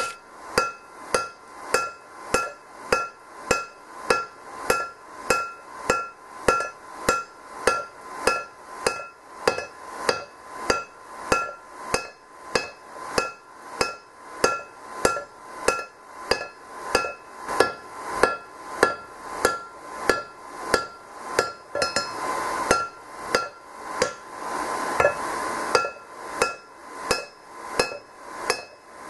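Hand forging: a hand hammer strikes a red-hot steel sledgehammer head on an anvil, about two blows a second, each with a short metallic ring. The head is being reshaped into a straight peen hammer. The steady rhythm loosens for a few seconds about three quarters of the way through.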